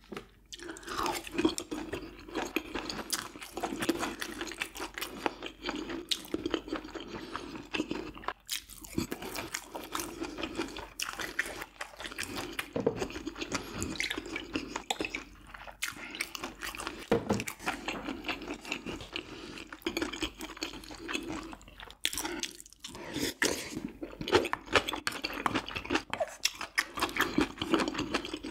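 Close-miked chewing and crunching of food by a person eating, a steady run of small wet clicks and crunches with a couple of short pauses.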